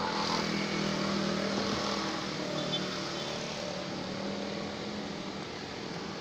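Steady engine hum over traffic noise, loudest in the first couple of seconds and then easing off.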